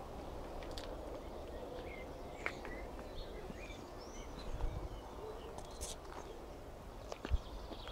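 Outdoor ambience: faint, scattered bird chirps over a steady low rumble, with a few soft clicks.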